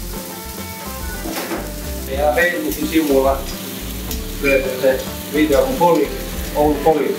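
Hamburger patties sizzling as they fry on a flat-top griddle, a steady hiss throughout. A person's voice comes and goes over it from about two seconds in.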